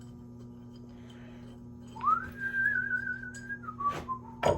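A person whistling: a note that slides up and is held for about a second and a half with a slight waver, then steps down to two lower notes. Two short clicks come near the end, over a faint steady low hum.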